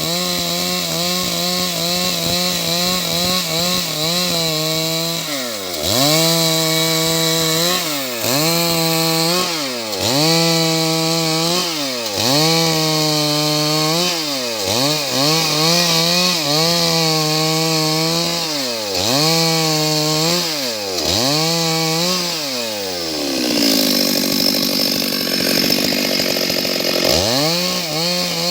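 Stihl MS 382 two-stroke chainsaw running at high revs while sawing wood, its engine pitch dropping sharply and climbing back every second or two. Near the end it falls to a lower, rougher sound for a few seconds, then revs up again.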